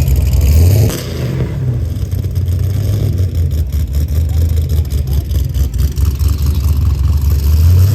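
Car engine revving and running with a low exhaust rumble. It is loud at first, eases off about a second in to an uneven idle, and picks up again near the end.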